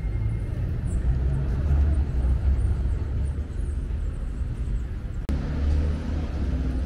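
Outdoor city ambience: a steady low rumble, like nearby traffic, with a single sharp click about five seconds in.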